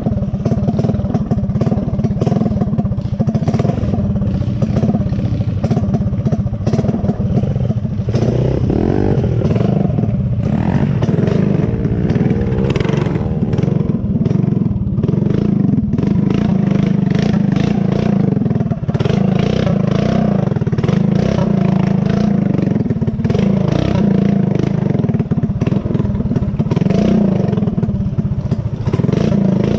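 Small single-cylinder four-stroke off-road engine running hard and revving up and down while riding a rough dirt trail, with rattling from the machine over the bumps.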